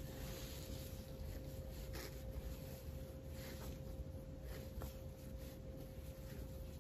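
Dry cleaning wipe rubbing over the glass screen of an iPhone 11 Pro Max in short, uneven strokes, with a faint steady hum underneath.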